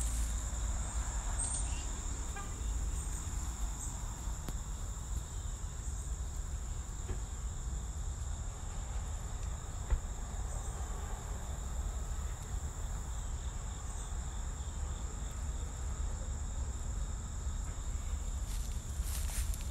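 Steady chorus of insects in woodland, a continuous high-pitched drone of several thin tones layered together, over a faint low rumble.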